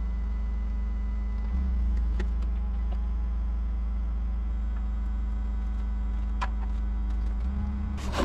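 Pickup truck engine running steadily at low speed, a low hum that rises slightly about one and a half seconds in, with a few faint clicks.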